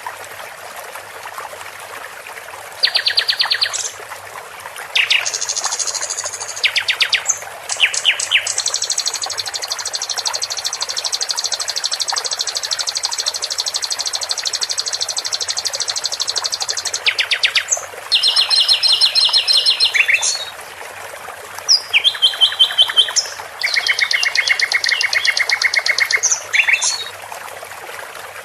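Songbird masteran recording: bursts of high, rapid trills and fast repeated notes, one trill running on for about eight seconds, over a steady rush of running water.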